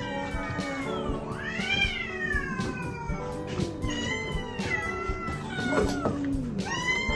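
Kittens meowing over and over: several long mews that rise and fall in pitch, some overlapping, over background music.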